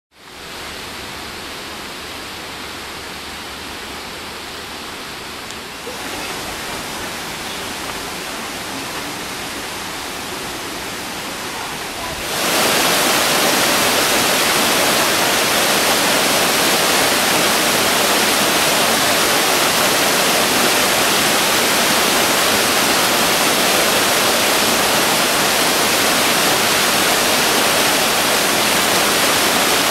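Waterfall: white water plunging onto rocks in a steady rush. It grows suddenly louder in two steps, about six and about twelve seconds in.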